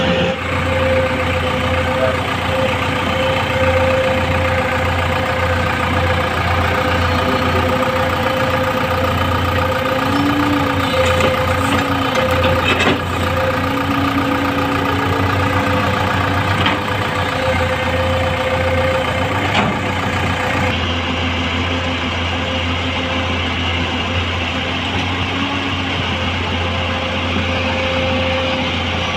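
L&T Komatsu PC200 hydraulic excavator's diesel engine running steadily under working load, with short whines that rise and fall as the hydraulics swing the boom and bucket.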